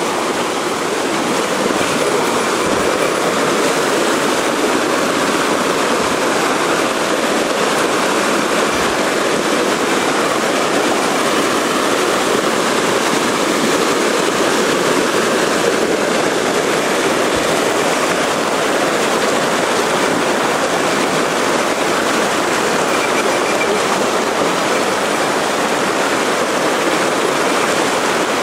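Fast mountain stream, water rushing steadily and loudly.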